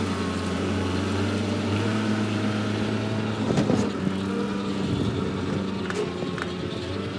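Skid steer engine running steadily, with a short louder burst a little past halfway.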